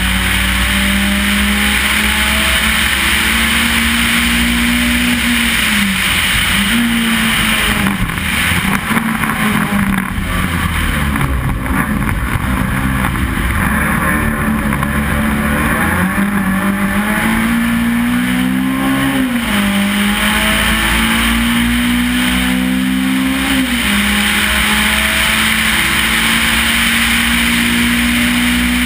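Race car's engine heard from on board, pulling hard with revs climbing and dropping sharply at each upshift, several times over. A rougher, unsteady stretch around the middle as the car slows through a tight bend, with road and wind noise throughout.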